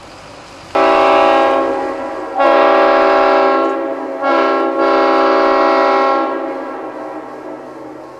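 Diesel locomotive air horn sounding three blasts with a brief drop between each, the last one longest and fading gradually toward the end.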